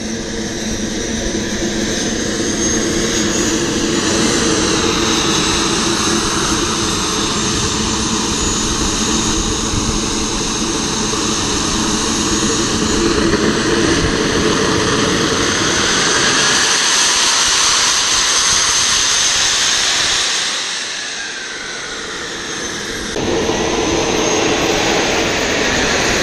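Small model turbine jet engine of an RC J-10 running on the ground: a steady turbine whine with a rushing hiss. Its sound dips for about two seconds near twenty seconds in, then rises again.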